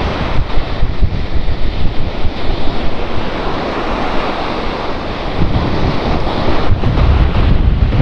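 Sea waves washing onto a beach, with wind buffeting the microphone in heavy low rumbling gusts, strongest near the end.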